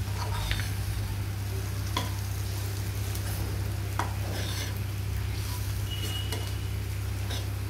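Spatula stirring capsicum pieces and masala powder in a nonstick kadai, scraping through the frying curry with a few sharp knocks against the pan, over a faint sizzle and a steady low hum.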